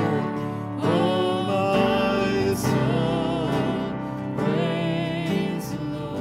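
A woman singing a slow worship song over instrumental accompaniment, holding notes with a wavering vibrato.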